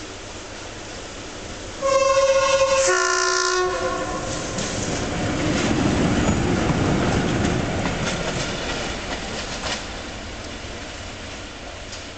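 SM42 diesel-electric shunting locomotive sounds its horn about two seconds in, a higher note then a lower one, then passes close by running light, its diesel engine loud with the wheels clacking over the rail joints, and fades as it moves away.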